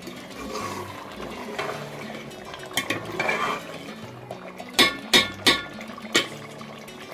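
Metal ladle stirring thick curry in a metal pot, scraping and sloshing through it, with several sharp clinks of the ladle against the pot in the second half, the loudest around five seconds in. Soft background music underneath.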